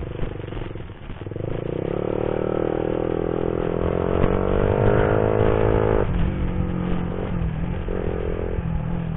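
Motorcycle engine accelerating, its pitch rising steadily for about four seconds, then falling suddenly about six seconds in and running on at a lower, steadier pitch.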